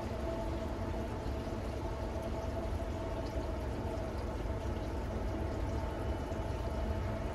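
Steady rain falling, over a low rumble and a steady hum from a train's diesel locomotive.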